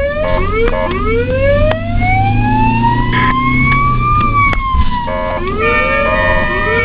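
Ambulance siren sweeping in pitch: a couple of quick rising whoops, then one long slow rise that peaks and falls away about four seconds in. About five seconds in it changes to steadier held tones broken by short upward sweeps.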